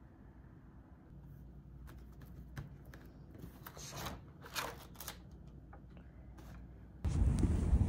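Sheets of printed, spiral-bound paper notes being lifted and flipped, several crisp rustles and page turns. Near the end the sound switches suddenly to a much louder low rumble.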